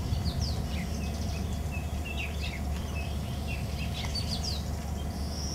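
Birds chirping: many short, quick calls scattered throughout, over a steady low background hum.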